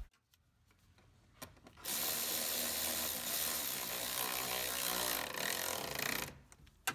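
Milwaukee M12 3/8-inch cordless ratchet running, driving a bracket bolt on a transmission cooler line down until it is snug. It starts about two seconds in, runs steadily for about four seconds and stops.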